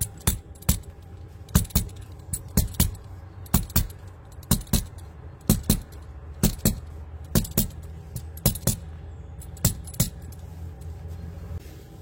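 A series of sharp metallic-sounding taps or clicks, irregular at roughly two a second, stopping about ten seconds in, over a steady low hum.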